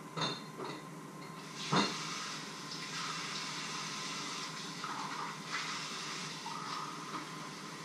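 A few knocks of kitchenware, then water running from a kitchen tap for about five seconds.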